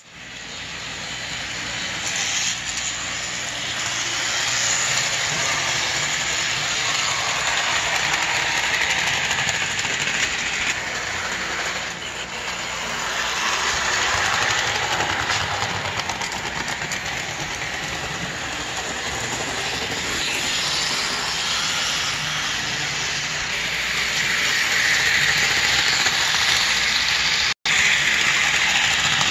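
HO scale Walthers Doodlebug model railcar running on the layout track: a steady whirring hiss from its motor and wheels on the rails, swelling and easing, with a brief gap near the end.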